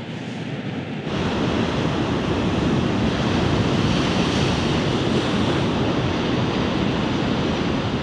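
Heavy storm swell breaking on a rocky shore: a steady rush of crashing surf and foam, louder from about a second in.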